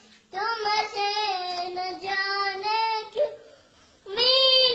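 A young boy singing long held notes in a high child's voice: one long phrase, a short break about three and a half seconds in, then the next phrase begins.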